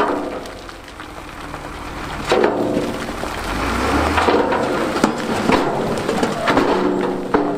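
Big stones clattering and rumbling as a dump truck tips its load, with many sharp cracks and a deeper rumble swelling about halfway through.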